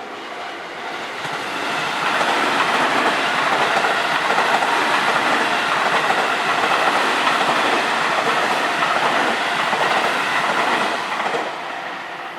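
A JR Kyoto Line train running through a level crossing. A loud rushing and rolling noise builds over the first two seconds, holds, and drops off sharply near the end as the train clears.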